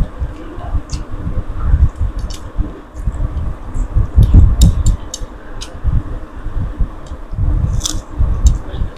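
Close-up eating sounds: irregular chewing with scattered sharp wet clicks and smacks, over low thumps.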